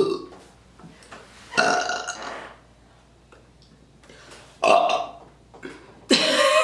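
A person burping loudly on command, four burps in a row: a short one at the start, then three longer ones of up to about a second each, with short gaps between.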